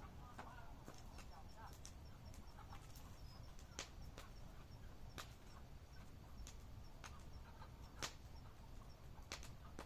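Campfire crackling: scattered sharp pops a second or two apart over a low steady rumble.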